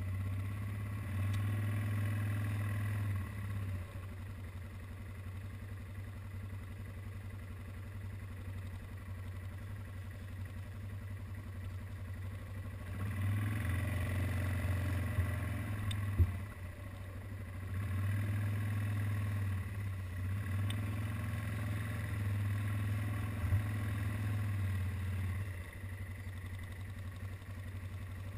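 ATV (quad bike) engine running at low speed. It gets louder for a few seconds at a time, three times, as the throttle is opened, and eases back between. There are a couple of brief sharp knocks.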